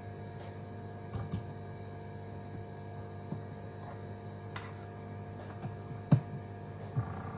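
Steady electrical hum from the running mains power setup, with a few light clicks of a DC barrel plug and cable being handled. The sharpest click comes about six seconds in as the plug is pushed into the PoE backup box's DC jack.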